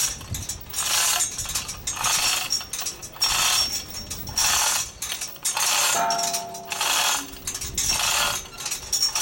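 Metal chain of a hand chain hoist rattling and clinking in repeated pulls, about one burst a second. A short ringing tone comes about six seconds in.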